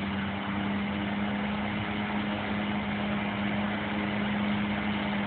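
Autonomous robotic lawnmower running as it drives across the lawn: a steady mechanical hum with one strong even tone over a background hiss.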